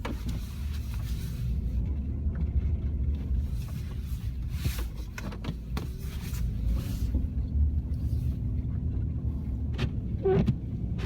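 Four-wheel-drive pickup truck's engine rumbling as it works through unplowed snow, with short scraping bursts and knocks along the way.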